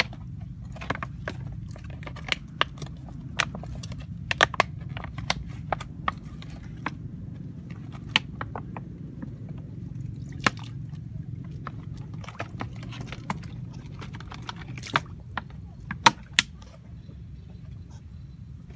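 Irregular sharp clicks and knocks as a plastic water bottle is handled and tipped against a woven bamboo fish basket, heard over a low steady hum.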